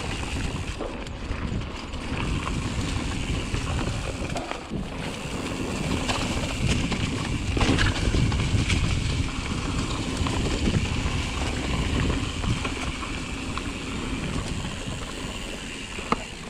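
Pivot Mach 5.5 full-suspension mountain bike riding over dirt singletrack: a steady rumble of tyres on the trail and wind on the microphone, with scattered knocks and rattles from the bike.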